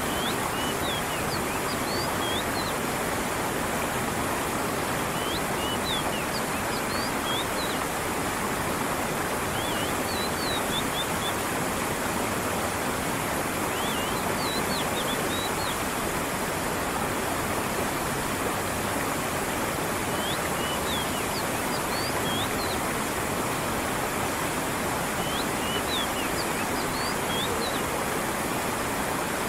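Steady rush of a stream with falling water, with a bird giving short high chirping phrases every few seconds.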